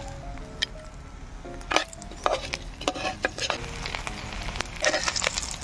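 Small dried fish frying in shallow oil in a wok, a steady sizzle broken by scattered sharp pops, with a cluster of pops near the end.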